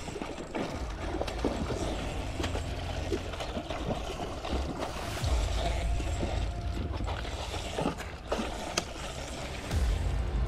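Spinning fishing reel being cranked to retrieve line, its mechanism whirring with scattered clicks, over a low rumble of wind on the microphone.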